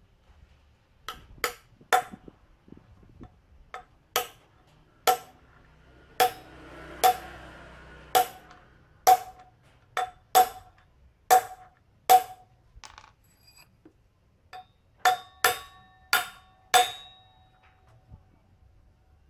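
Hammer blows on a steel drift set on a new motorcycle wheel bearing, tapping the bearing into the wheel hub by its outer edge. About twenty sharp metallic knocks, each with a short ring, come irregularly about one a second, with a quicker run near the end.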